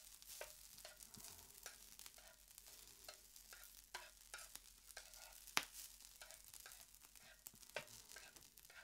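Rice frying in rendered wagyu beef fat: a faint sizzle with irregular crackles and pops, one sharper crack about five and a half seconds in.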